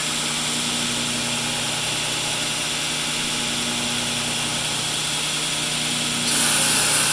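Steady machine drone: a motor hum under a hiss. A louder rushing hiss joins about six seconds in.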